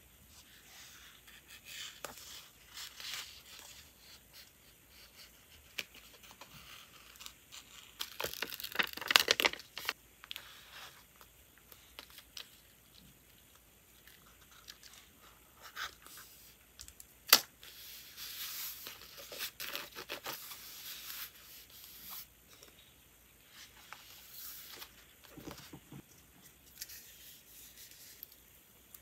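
Decorative washi tape handled on a paper journal page: tape peeled and torn, pressed down, and trimmed with a craft knife, with intermittent rustling and scraping. The loudest is a stretch of tearing about a third of the way in, and there is one sharp tap a little past the middle.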